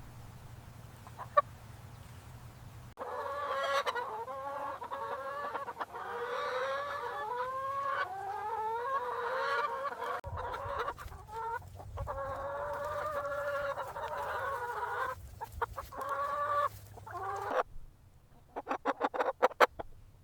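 Domestic chickens calling: long, wavering drawn-out calls overlap for most of the stretch, then a quick run of short sharp clucks comes near the end.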